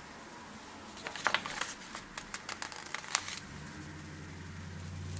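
Planner sticker sheets being handled and peeled: a couple of seconds of light crinkles, ticks and taps of paper. About three and a half seconds in, a low steady hum comes in.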